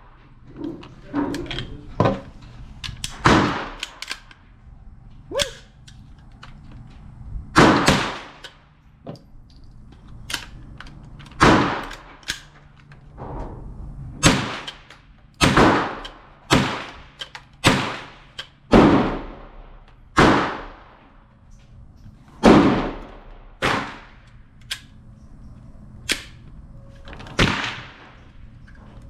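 Semi-automatic .22 LR shots from an AR-15 pistol with a 10.5-inch upper and a CMMG .22 LR conversion kit, firing CCI Mini-Mag rounds: about sixteen sharp cracks spaced irregularly one to three seconds apart, each ringing out briefly, with a few lighter clicks between them.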